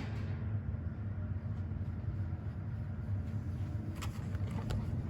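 Mid-1960s Eskimo box fan running on its low speed setting, a steady low hum of motor and blades. Two faint clicks come about four seconds in.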